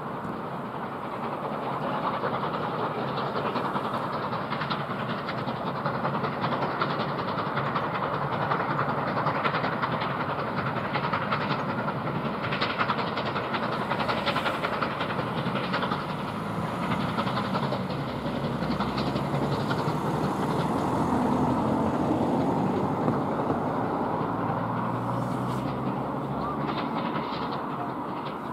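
Steam locomotive hauling a train: a steady mix of exhaust from the chimney and the run of the carriages' wheels over the rails.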